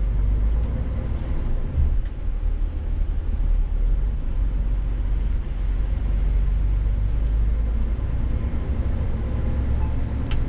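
Scania S500 truck heard from inside the cab while driving: a steady low engine drone with road noise on a slushy road.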